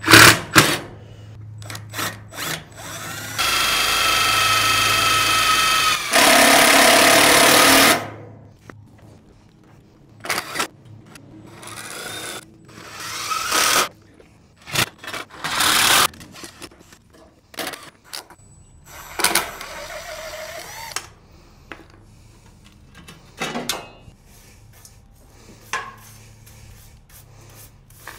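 Cordless drill running in several bursts. The longest starts about three and a half seconds in, holds a steady whine and turns louder and harsher halfway through. Sharp clicks and knocks of tools being handled fall between the runs.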